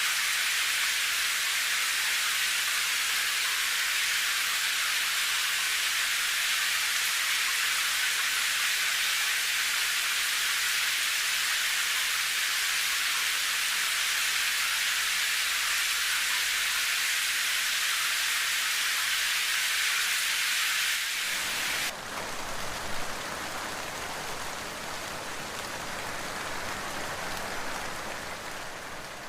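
Steady rain, a high even hiss. About 21 seconds in it changes abruptly to a fuller, deeper rain sound that fades out near the end.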